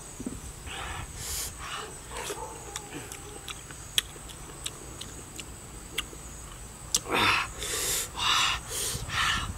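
A person eating crisp fruit dipped in salt and chili: wet chewing and small mouth clicks, then a run of several louder crunching bites near the end.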